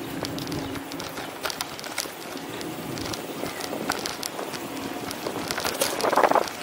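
Outdoor city street ambience heard from a moving bicycle: steady background noise with many scattered sharp clicks, and one brief louder sound about six seconds in.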